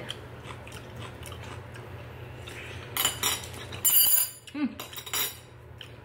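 Metal chopsticks clinking against a ceramic soup bowl while eating noodles, in two short clusters of clinks about three and four seconds in.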